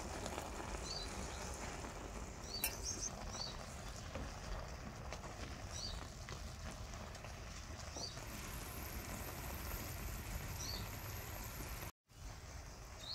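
Noodles in tomato broth simmering in a frying pan on a portable gas stove: a steady bubbling hiss with scattered small pops and clicks. A small bird chirps now and then, short high double chirps every couple of seconds.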